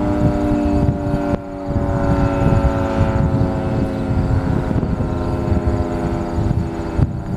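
Federal Signal 3T22 rotating outdoor warning siren sounding its steady chord of several tones, the pitch sagging slightly, with heavy wind buffeting on the microphone.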